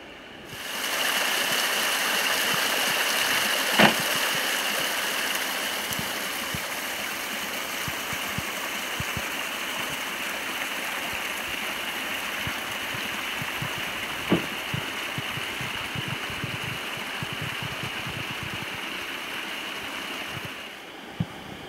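A steady rushing hiss, like wind or running water, that starts about a second in and cuts off shortly before the end, with a sharp knock about four seconds in and another about fourteen seconds in.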